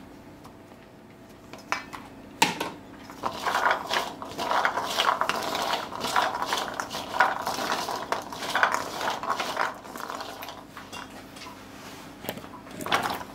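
Soaked chickpeas stirred with a silicone spoon in a hammered metal bowl, rattling and scraping against the metal sides. A couple of sharp knocks come first, dense stirring follows for several seconds and then eases off, and a few more knocks come near the end.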